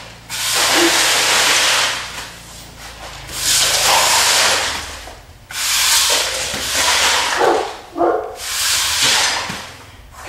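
Concrete shop floor being cleaned in four long hissing strokes, each lasting a second and a half to two seconds, with short pauses between them.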